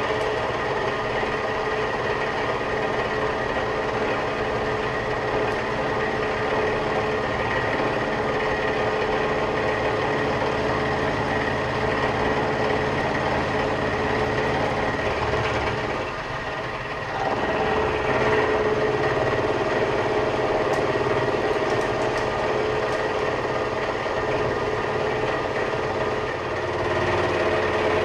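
Vertical milling machine running, its end mill cutting along the edge of a thick, hard steel plate to square it up. It makes a steady whine with a couple of held tones, and eases off briefly about two-thirds of the way through before carrying on.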